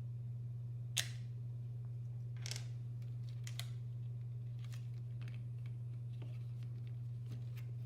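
Scattered light clicks and short scrapes of mechanical keyboard parts being handled, with one sharper click about a second in, over a steady low hum.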